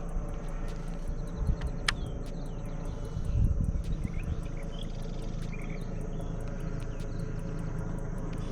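Marsh ambience: insects chirping over a low steady hum, with a sharp click about two seconds in.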